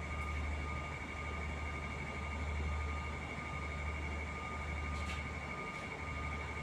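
Steady low hum of a car carrier's engines and machinery under way, with a thin constant high whine over it and a light click about five seconds in.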